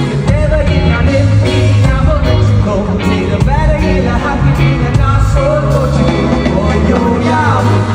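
Live concert music: a band with heavy bass and a singer's voice gliding over it, loud and continuous.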